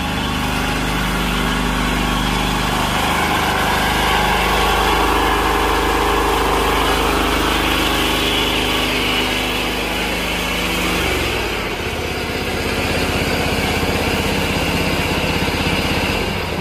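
A small engine running steadily, its note dropping to a lower speed about eleven seconds in.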